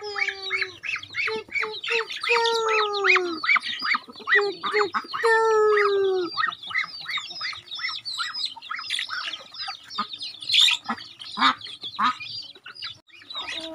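A young duck held in a child's hands squawking in two long, falling calls about two and five seconds in, over constant high peeping from chicks in the flock.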